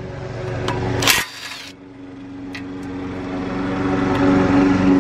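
A small engine or motor running steadily at an even pitch, getting louder from about two seconds in, with a sharp knock about a second in.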